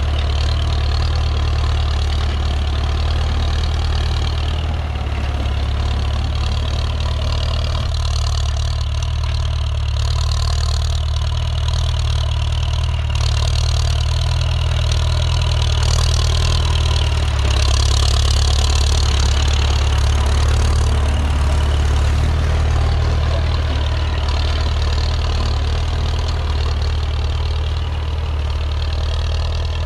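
Ford 6610 tractor's four-cylinder diesel engine running steadily through a loud exhaust.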